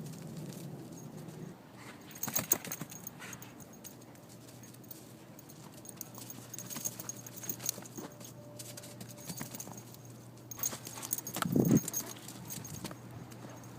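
A black Labrador playing with a balloon in snow: scattered taps, scuffs and jingles in short clusters, with one louder, duller thump near the end.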